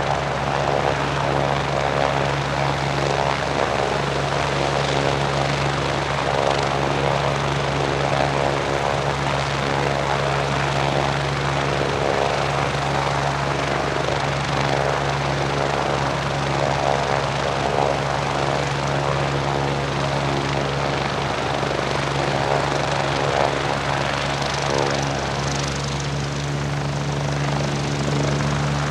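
Medevac helicopter's turbine engine and rotors running steadily on the ground at flight idle, a whine over a deep rotor hum. A little before the end the hiss grows brighter as the helicopter readies to lift off.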